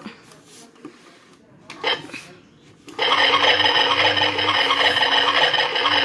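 Brief handling noises, then about three seconds in a battery-powered toy washing machine starts up: its small motor turns the drum with a steady, rasping whir that keeps running.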